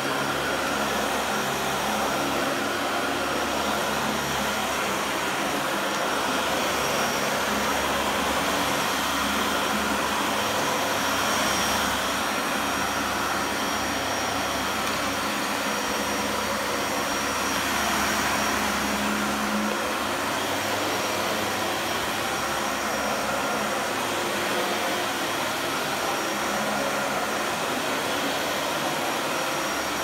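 Dyson DC40mk2 Animal upright vacuum cleaner running steadily as it is pushed over a plush rug, with a faint high whine over its steady rush of air.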